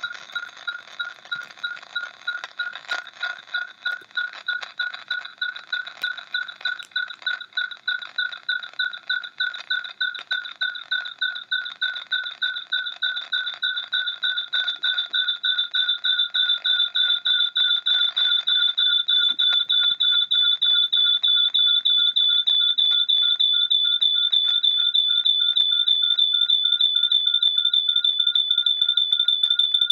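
Rapid electronic beeping, about four to five beeps a second on a steady two-pitch tone, growing gradually louder.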